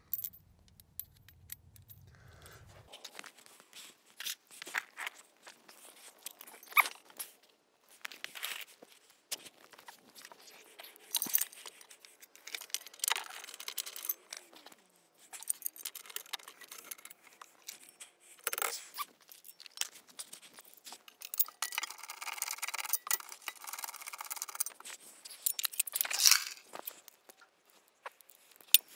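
Metal hand tools clinking and scraping, with a socket ratchet clicking in short runs and a longer run of clicks past the middle, as bolts are worked on the underside of a car.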